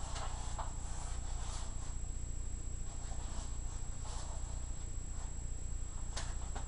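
Steady low hum with a thin high whine, under faint rustling, and a sharp click near the end.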